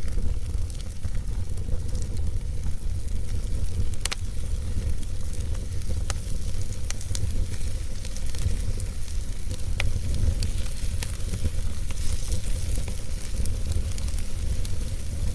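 Fire crackling in a fireplace: a steady low rumble and hiss with scattered sharp pops at irregular intervals.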